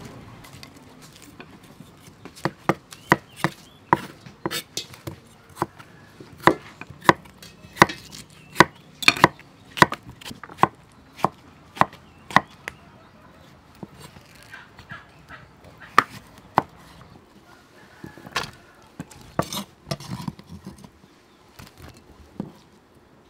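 Cleaver chopping vegetables on a thick round wooden chopping board: a string of sharp knocks, about one and a half a second, thinning out to scattered knocks in the second half.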